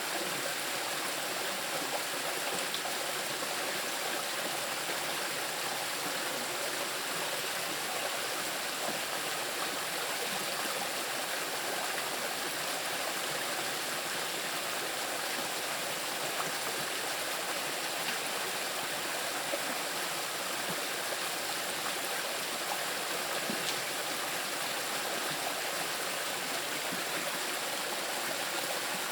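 Small river rushing steadily over moss-covered rocks: an even, unbroken rush of water.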